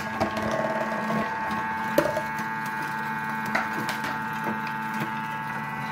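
Thermomix food processor running its slicing attachment ('Découpe minute' cutter): a steady motor whine with a few sharp knocks as potatoes are pushed down the feed tube and cut into thin slices.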